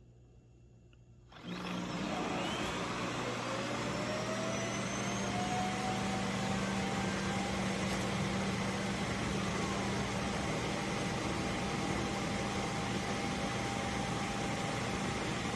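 A vacuum motor switches on about a second and a half in and runs steadily, its whine rising in pitch over the next few seconds and then holding steady over a constant low hum.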